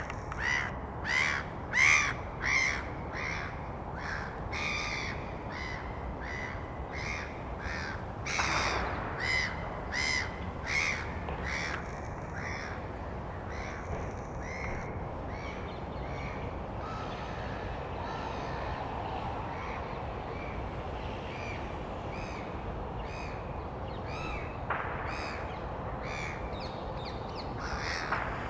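Black-headed gulls giving harsh, repeated calls, one or two a second. The calls are dense and loudest in the first dozen seconds, then come sparser and fainter, with a few more near the end, over a steady low background rumble.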